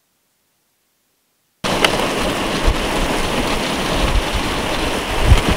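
Silence for the first second and a half, then heavy rain hitting a moving car: a steady loud rush broken by sharp individual hits.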